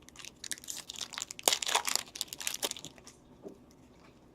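Crinkling and crackling of a hockey card pack wrapper being torn open and handled: a quick run of crackles that dies away about three seconds in.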